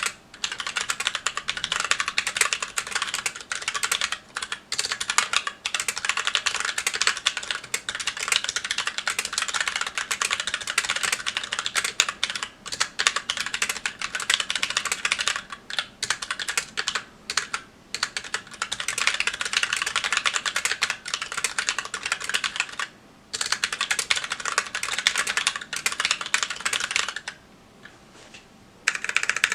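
Fast continuous typing on a Magicforce 68 mechanical keyboard with stock Gateron Brown tactile switches and GMK keycaps. The clicks come in dense runs with brief pauses, and the typing stops for about two seconds near the end before starting again.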